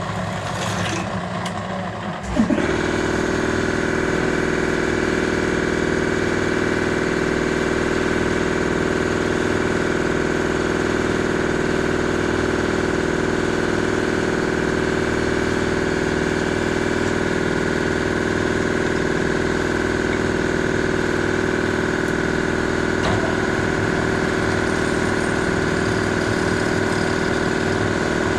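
A motor-driven machine starts about two seconds in, spinning up quickly, then runs with a loud, steady hum.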